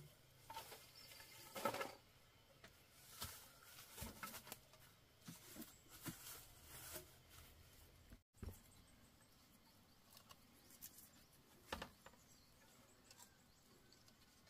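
Near silence, with a few faint, scattered clicks and light taps.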